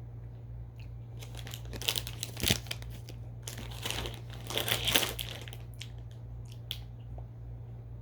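Plastic candy wrapper crinkling and tearing as it is opened by hand, in two bursts a few seconds long with small clicks between.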